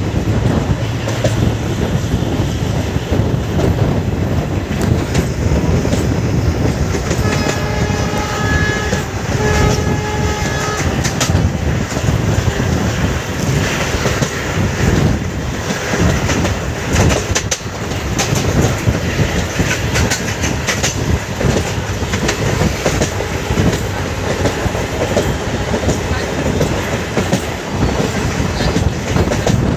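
Passenger train coach running along the track, heard from the open doorway: a steady rumble and clickety-clack of the wheels. About a quarter of the way in, the locomotive's horn sounds twice, a steady note with several tones.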